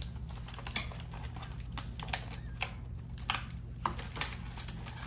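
Small toy objects and their packaging being handled and unpacked, giving light, irregular clicks and taps, a few a second.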